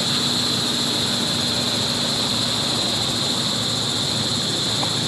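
Steady, unchanging background drone: a constant high hiss with a low hum beneath it.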